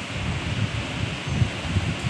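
Air rushing over the microphone: a steady hiss with irregular low rumbling gusts.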